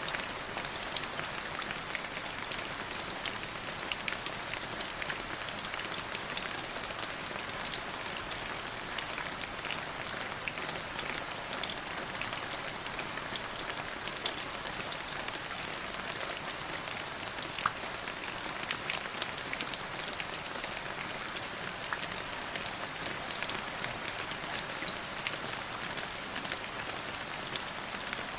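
Steady rainfall, an even hiss of rain with many small close drop ticks spattering on a surface.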